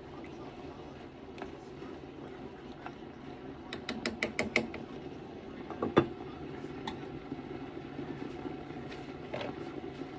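Glass pot lid set down on a cooking pot with a single loud knock about six seconds in, after a quick run of about six light clicks a couple of seconds earlier, over a steady low background noise.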